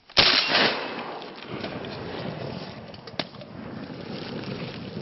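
A single shotgun shot a moment in, fading over about a second, followed by steady rustling and wind noise as the gun is swung, with one sharp click about three seconds in.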